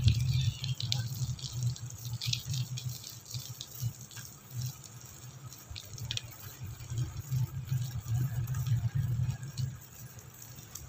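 Wind buffeting the microphone of a camera carried on a moving bicycle: an uneven low rumble that swells and fades, with scattered light clicks and rattles from the ride.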